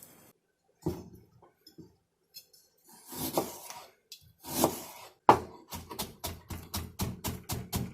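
Kitchen knife chopping on a cutting board: after a few scattered knocks of handling, quick even strokes begin about five seconds in, about four a second.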